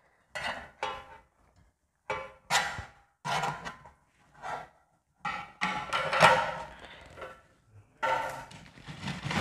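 Short knocks and scrapes of utensils against a stainless-steel food pan and a ceramic plate, with brief gaps between them, as dried anchovies are picked out of the pan and mixed into noodles.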